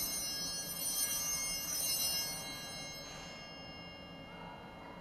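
Altar bells (Sanctus bells) ringing at the elevation of the chalice at the consecration: three shakes about a second apart, a high shimmering ring that fades away about three seconds in.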